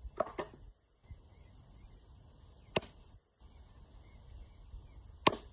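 Tossed metal washers landing on a washer-toss board, with a few sharp clacks a couple of seconds apart: two light ones near the start, then single clacks about three and five seconds in. The washers are catching the rim of the centre cup instead of dropping in.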